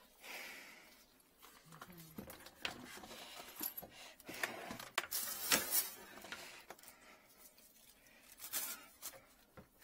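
Handling noise: scattered small clicks, knocks and rustles as gloved hands move cloths and gear about in the cabinet under a kitchen sink.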